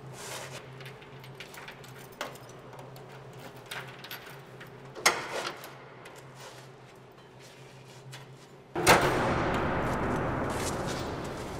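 A steady low hum with a few scattered clicks and knocks. Then, about nine seconds in, a sudden loud noisy hit sets in and dies away slowly over about three seconds, like a horror-film sound-effect sting.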